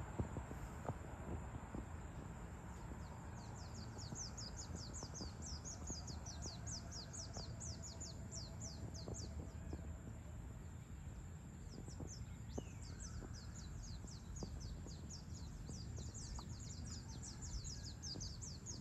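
A bird singing a long, rapid, high-pitched trill of short falling notes, several a second, pausing briefly near the middle and then starting again. Under it runs a steady low outdoor rumble.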